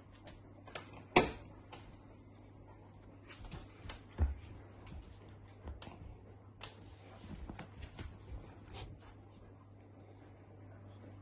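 Scattered scuffs, clicks and rustles from a golden retriever puppy tugging and mouthing a plush toy on a wooden floor. A sharp knock comes about a second in and a duller thump about four seconds in, over a faint steady low hum.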